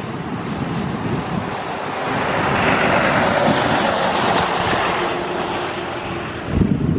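A passing vehicle's rushing noise that swells to its loudest about three seconds in and fades again, with a short low rumble near the end.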